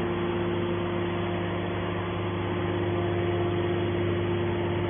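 Gasoline engine of a scrap-metal baler running steadily at a constant speed, a low hum with a steady higher tone over it.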